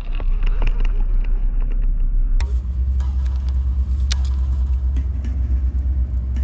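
A loud, steady low rumble with an unsteady, fluttering level, with a sharp click about two and a half seconds in.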